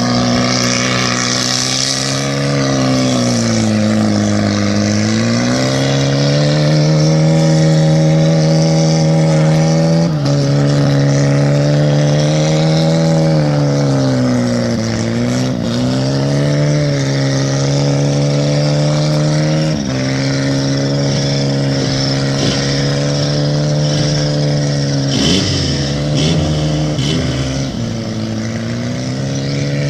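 Engine of a gaiola, a small homemade off-road cage buggy, running continuously under throttle. Its pitch holds steady for stretches and dips and picks back up several times, near 4 s, 15 s, 20 s and 26 s, as the revs change.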